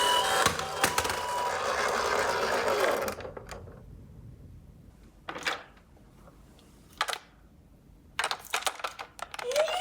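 A toy ambulance minicar rolls down a slope with a steady rattling whirr from its small wheels, which stops suddenly about three seconds in. A few small plastic knocks follow, then a quick run of clicks near the end. At the very end a toy's electronic siren starts with a rising tone.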